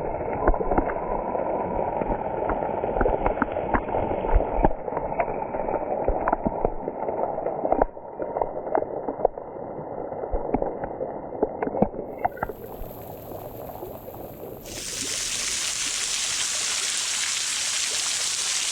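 Running water of a small waterfall, with scattered knocks and clicks over a dull rush. About fifteen seconds in, a steady, brighter rush of falling water takes over.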